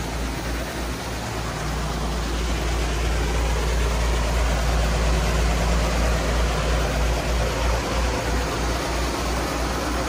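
A diesel engine of the grain-unloading setup runs steadily with a low drone and a broad rushing noise over it. It grows slightly louder about two seconds in.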